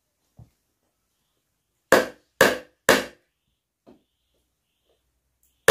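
Hammer driving nails into wooden boards: three sharp blows about half a second apart around two seconds in, and another right at the end, with a couple of faint knocks of wood in between.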